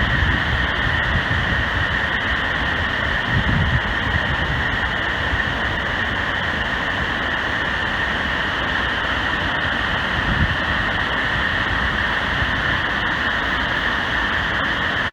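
Steady rushing of a large waterfall, the Great Falls of the Passaic River, with wind buffeting the microphone in a few low gusts.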